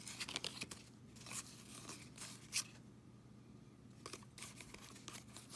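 Baseball trading cards being flicked through by hand: faint scrapes and snaps of cardstock sliding off one another, in scattered short strokes, the sharpest about two and a half seconds in.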